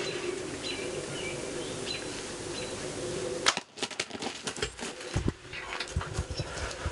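A bow shot at a wild turkey tom: one sharp snap about three and a half seconds in, then a rush of wing flapping, rustling and low thumps as the hit bird thrashes in the corn stubble.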